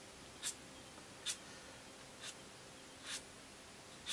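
Edge of a dry pastel stick scratched across rough-textured pastel paper in quick strokes: a short, dry scratch about once a second.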